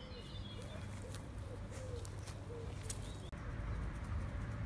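Pigeon cooing: a run of short, low coos about two a second, stopping about two and a half seconds in, over a steady low hum.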